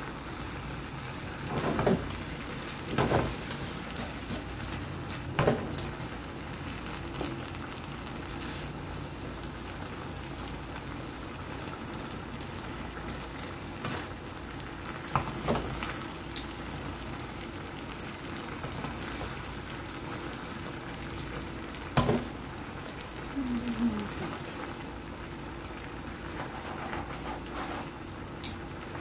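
Fish paksiw simmering in a pan, the vinegar sauce sizzling and bubbling steadily as it cooks down on medium heat. Metal tongs click and knock against the pan and fish now and then.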